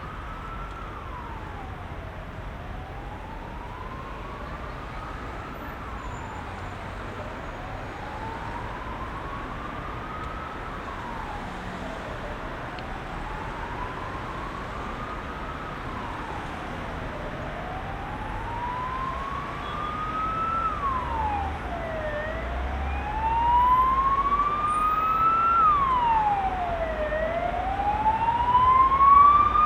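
Emergency vehicle siren wailing: the pitch climbs slowly and drops quickly, once about every five seconds, and grows louder as it approaches. Steady heavy road traffic runs underneath.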